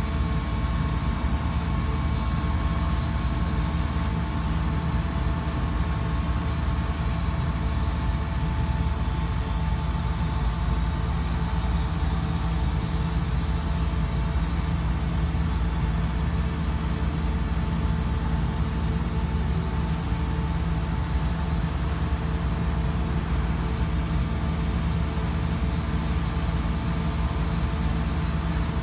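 Putzmeister Sika PM 500-PC shotcrete machine's engine running at a steady speed, powering the hydraulics that move its spraying boom.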